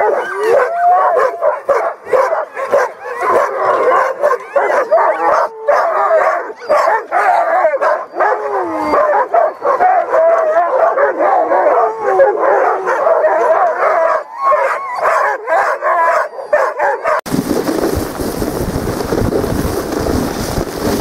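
A yard of harnessed sled dogs barking, yipping and howling all together in a loud, excited chorus while being hitched up for a run. About seventeen seconds in, it cuts abruptly to a steady rushing noise of wind and movement as the team runs the trail.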